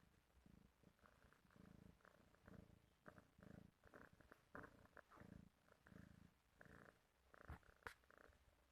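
A Russian Blue cat purring quietly. The low buzz swells and fades about once a second with its breathing. There is one sharp click near the end.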